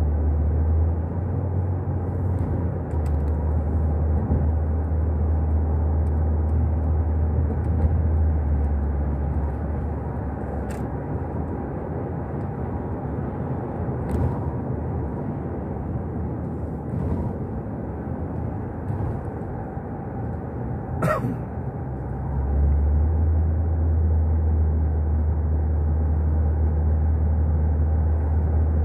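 Road and engine noise of a moving car, heard from inside, with a heavy low rumble that eases off for a stretch in the middle and comes back strongly near the end. One brief sharp click about three-quarters of the way through.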